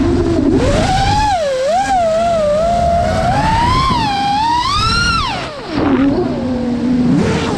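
Brushless motors and propellers of an iFlight Nazgul 5 FPV quadcopter whining, the pitch rising and falling with the throttle and climbing to a peak about five seconds in. The throttle then cuts to a low, steady hum during a roll, and the whine climbs again near the end, with wind rush on the onboard GoPro's microphone.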